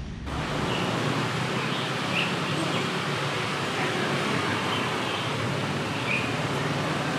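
Steady outdoor background noise with a few short bird chirps scattered through it.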